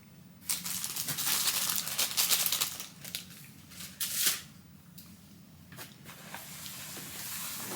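Plastic snack packaging crinkling as it is handled, loudest for the first few seconds, with a short sharper rustle about four seconds in.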